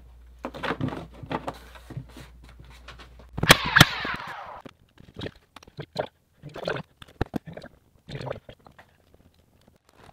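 Hands handling trim and wiring, making scattered clicks and rustles. About three and a half seconds in there is a loud sharp double snap, followed by a brief crackle.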